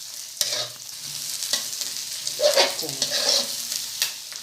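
Egg with chopped onion and green chilli sizzling in hot oil in a karahi while being stirred, the utensil scraping against the pan several times, about once a second.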